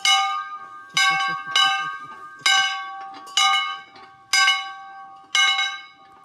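Hand-swung farm bell in a yoke mount, its clapper striking about once a second, seven strokes in all, each ringing out and fading before the next.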